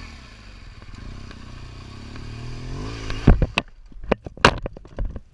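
BMW R1200 GS flat-twin engine running on the move, easing off so its pitch sinks slightly; about three seconds in it gives way abruptly to a string of loud, sharp knocks and clatter.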